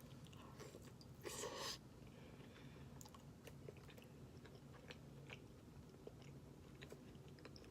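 Faint chewing with scattered small clicks of eating food, and one brief louder burst of noise a little over a second in.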